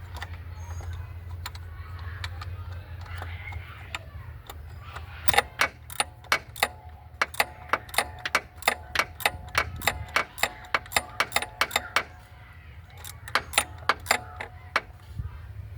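Hand socket ratchet clicking as a bolt is worked: a long run of sharp, ringing metallic clicks, about two or three a second, a short pause, then a shorter run near the end.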